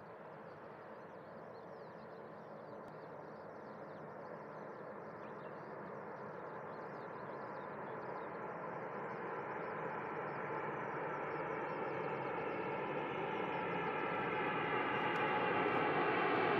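Boeing 787-8 Dreamliner's Rolls-Royce Trent 1000 turbofans on landing approach: a jet rumble growing steadily louder as the airliner closes in, with several whining tones coming through near the end.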